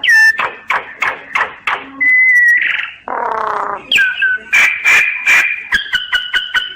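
Common myna singing: a varied run of whistles that glide down and hold steady, dry clicks, and a harsh raspy note about three seconds in. Near the end, fast clicking sounds over a held two-tone whistle.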